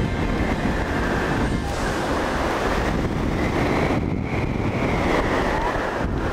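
Strong airflow rushing over the action-camera microphone while a paraglider dives and turns at about 60 km/h.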